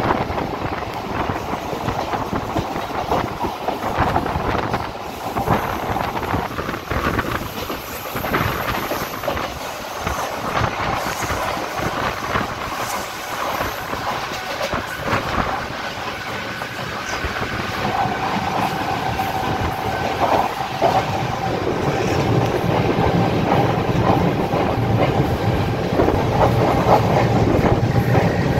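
Mumbai suburban local train running at speed, heard from on board: steady rolling noise with wheels clattering over rail joints. Over the last third the running noise grows louder and heavier as the train runs onto a bridge.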